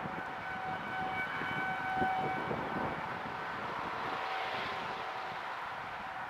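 Outdoor tornado warning siren (civil defense siren) sounding a steady held tone, signalling a tornado warning. The tone weakens after about three seconds, and a rushing noise swells about four seconds in.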